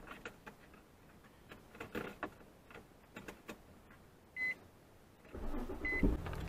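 Faint clicks of the key being handled, two short beeps about a second and a half apart, then the Infiniti FX35's 3.5-litre V6 starts about five and a half seconds in and settles into a steady idle.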